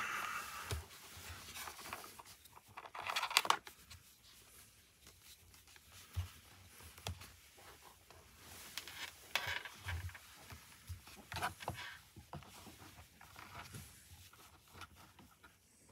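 Hands working a helmet intercom speaker and its cable into a motorcycle helmet's padded liner: irregular rustling, scraping and tearing sounds with a few sharp clicks, loudest about three seconds in and again around ten and eleven seconds in.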